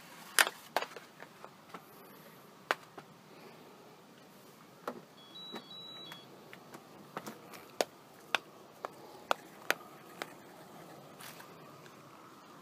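Self-balancing hoverboard rolling over brick paving: irregular sharp clicks and knocks over a faint steady noise, with a short high beep about five seconds in.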